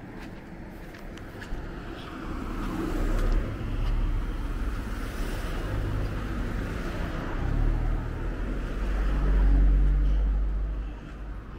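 Road traffic passing close by: motor vehicles driving past one after another with a low engine rumble, swelling about three seconds in and loudest around ten seconds in before fading.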